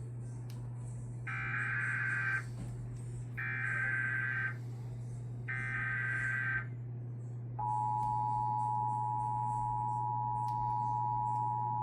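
Emergency Alert System header: three one-second bursts of SAME digital data tones, then, about two-thirds of the way in, the steady two-tone EAS attention signal begins. A steady low hum runs underneath.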